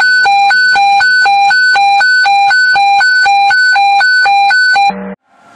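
Electronic siren in hi-lo mode: two steady tones, one low and one high, alternating about every quarter of a second, then cutting off suddenly after about five seconds.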